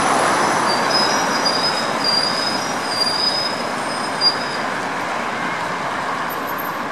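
Tram wheels squealing on the rails, a thin wavering high screech for the first four and a half seconds or so, over a steady rumble of street traffic. A short knock sounds about four seconds in.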